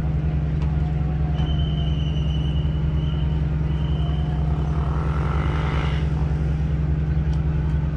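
A large engine running steadily: a loud, even low drone. A thin high tone sounds on and off over it, and a brief rushing noise comes about five seconds in.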